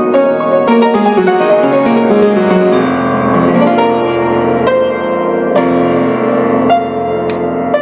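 Solo piano music: a melody of struck notes ringing over sustained lower notes.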